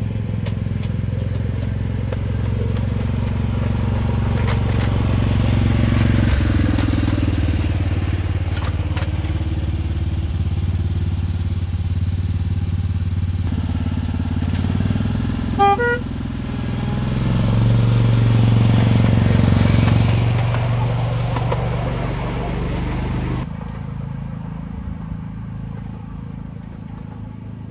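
An engine running steadily with a low hum, swelling for a few seconds past the middle and dropping suddenly in level near the end, with a brief pitched toot just before the swell.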